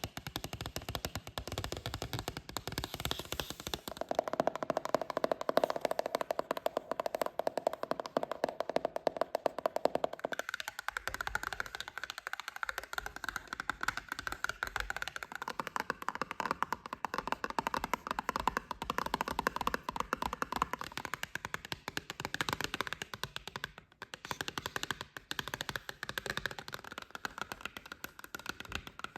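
Fast, continuous fingertip tapping on cardboard boxes, a dense run of quick hollow taps. About ten seconds in the tone shifts higher, as if onto a different box or part of the box, and there is a brief break a little past the middle.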